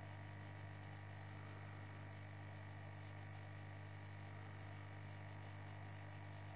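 Steady low electrical hum, with a faint constant higher tone above it and light hiss.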